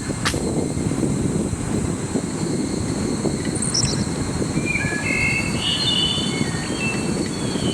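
A steady low rumble throughout, with birds calling over it: a few short high chirps about four seconds in, then a run of short whistled notes in the second half, over a thin steady insect whine.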